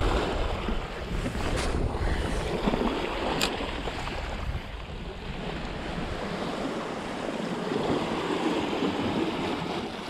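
Small sea waves lapping and splashing against a rocky shore, with wind rumbling on the microphone, strongest in the first half. Two short clicks come at about a second and a half and three and a half seconds in.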